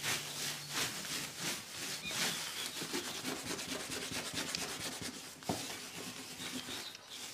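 A cloth scrubbed back and forth over wooden floorboards by a gloved hand, in quick repeated rubbing strokes.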